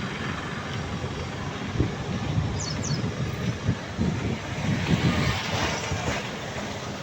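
A 30 kW (40 hp) VFD rotary screw air compressor package running with a steady low hum. Irregular low thumps come through the middle few seconds.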